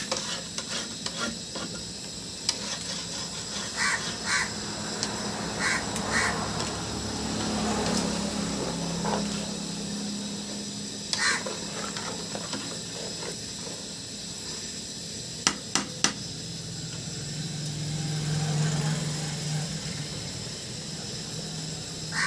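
Crows cawing in short runs of two or three calls, over a steady background.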